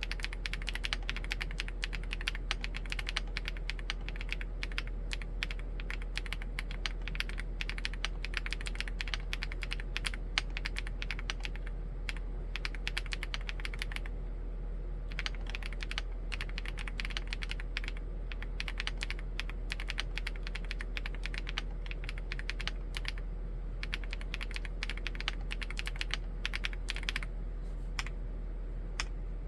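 Typing on a Chilkey ND75 mechanical keyboard with Gateron EF switches: a fast, continuous patter of keystrokes. The typing breaks off for about a second around fourteen seconds in, and the presses grow sparser near the end.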